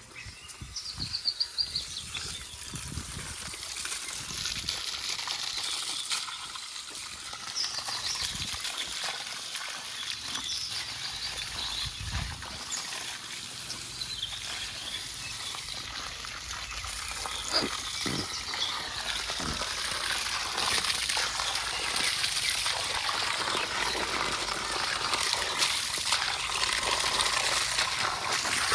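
Steady rushing, water-like noise that grows slowly louder, with a few brief high chirps.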